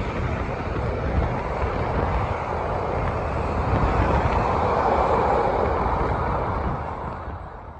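Passenger carriages of a steam train rolling past on the rails, a steady rumbling rush of wheel noise that swells about halfway through and fades away near the end, with wind buffeting the microphone.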